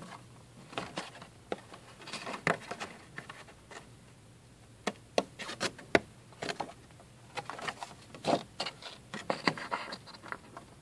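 Sheet of cardstock being handled and moved about on a table: irregular rustles and small sharp crackles of stiff paper.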